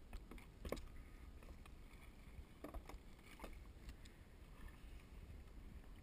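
Faint scattered knocks and taps of handling on a kayak, the sharpest one near the start, over a low steady rumble.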